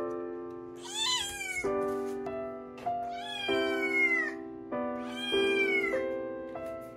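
A cat meowing three times, each meow long and falling in pitch at the end, over background music with steady held notes.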